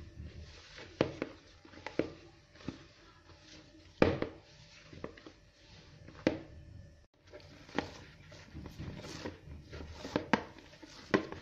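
Hands kneading soft batbout dough in a bowl: irregular thuds and slaps of the dough being pressed and folded against the bowl, roughly one a second, the loudest about four seconds in.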